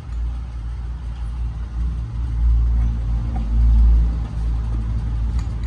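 Steady low rumble of a running engine, swelling somewhat in the middle.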